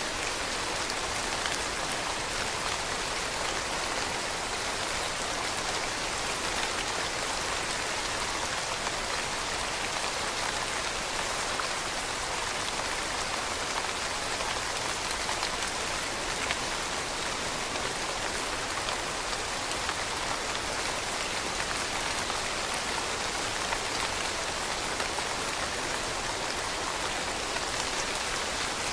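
Steady rain falling on leaves: a dense, even patter of drops with faint individual ticks, unchanging throughout.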